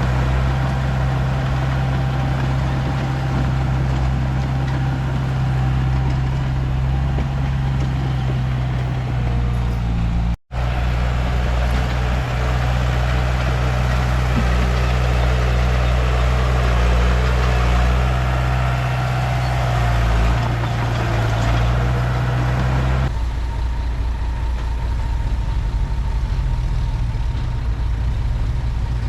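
Komatsu D31P bulldozer's diesel engine running steadily under work, with a momentary break about ten seconds in. About four-fifths of the way through, the higher sounds drop away and leave a lower, duller hum.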